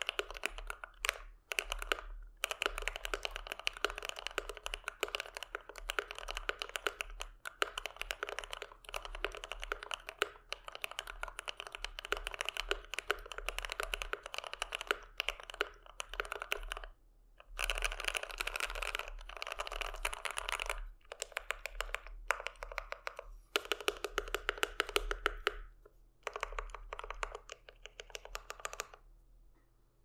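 Fast, continuous typing on a GMMK Pro mechanical keyboard with lubed Gateron Yellow linear switches, HK Gaming dye-sub PBT keycaps and a foam-stuffed case. The keystrokes run in dense bursts broken by a few brief pauses, and the typing stops shortly before the end.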